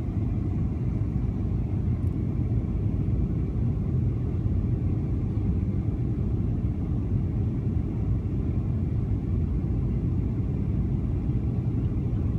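Steady low rumble of airliner cabin noise, the engines and rushing air heard from a window seat as the plane descends on its landing approach.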